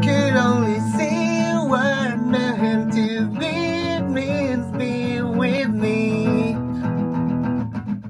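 Music: acoustic guitar strummed steadily, with a gliding melody line over it for the first six seconds or so.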